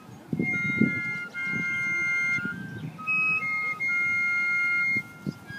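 Fife and drum corps playing a tune. Several fifes play shrill held notes together, with a short break midway, over drum beats.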